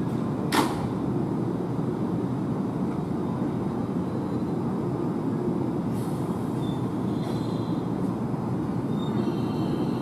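Nankai 50000 series rapi:t electric train standing at the platform over a steady low hum, with a sharp click about half a second in. About six seconds in comes a short hiss, then high whining tones from its electric drive as the train starts to pull away.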